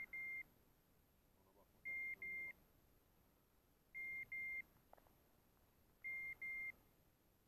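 A pointing dog's beeper collar sounding a double beep about every two seconds, the point-mode signal that the dog is standing on point.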